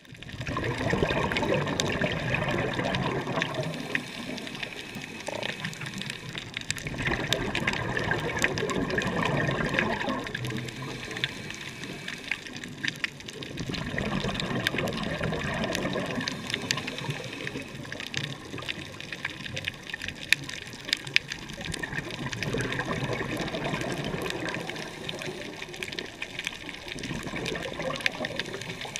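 Underwater recording of a scuba diver's exhaled bubbles rushing from the regulator in long swells every several seconds, with scattered crackling clicks in between.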